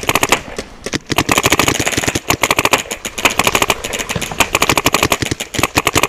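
Paintball markers firing rapid strings of shots, roughly a dozen pops a second, with a short lull in the first second before the firing picks up again and keeps going.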